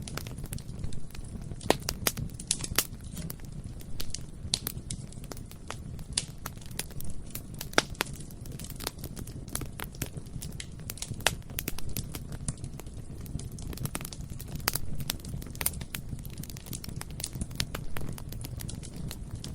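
Bonfire burning: a steady low roar of the flames with frequent irregular crackles and sharp pops from the burning wood.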